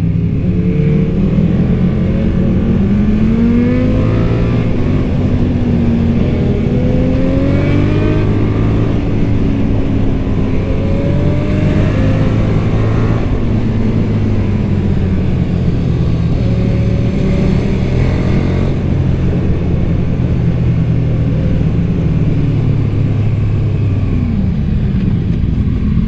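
KTM 1290 Super Duke R's V-twin engine on its stock exhaust under way, the revs climbing again and again as it pulls through the gears, then falling off near the end.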